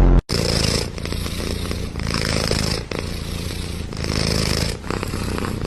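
A cat purring loudly and close up, swelling and easing about every two seconds with its breathing.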